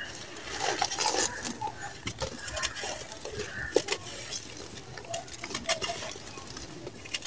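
Dry, gritty sand-cement powder and crumbs scooped by hand and poured back onto a dry pile, a crunching trickle with many small clicks of falling granules.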